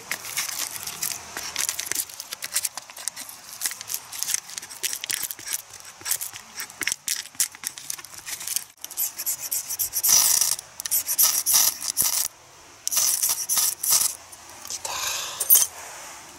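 A steel knife blade scraping and shaving dry white-birch bark against a wooden stump: a fast run of short rasping strokes. From about ten seconds in the scrapes come as longer, harsher bursts, and by the end a spark has caught on the bark.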